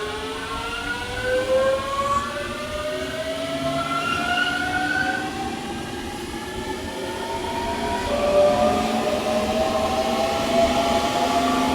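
Electric commuter train's traction motors whining as it pulls away, several tones rising steadily in pitch over a rumble of wheels on rail. About eight seconds in the whine shifts to a new set of tones that keep climbing as the train gathers speed.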